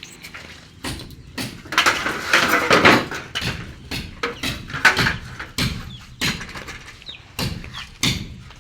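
Steel window frames being unloaded and handled, giving irregular knocks, clanks and scraping, busiest about two to three seconds in.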